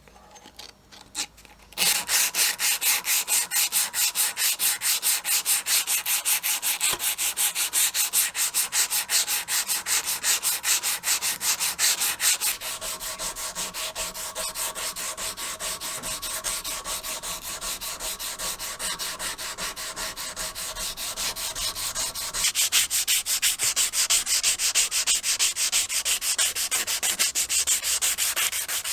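Rapid, even back-and-forth abrasive strokes, about four a second, rubbing at the rusted metal of an antique cement groove tool. The strokes start about two seconds in after a few light knocks, drop somewhat in level around twelve seconds, and grow louder again past twenty-two seconds.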